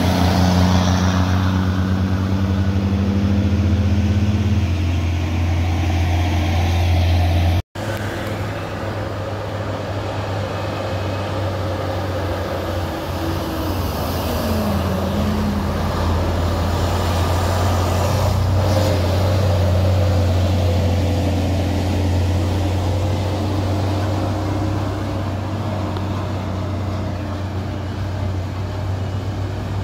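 Road traffic on a highway: a steady low engine drone with tyre and road noise, with a brief audio dropout about eight seconds in.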